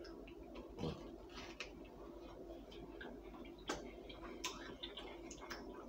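Faint chewing and mouth sounds of eating a croissant with bacon: soft, irregular clicks, smacks and crackles.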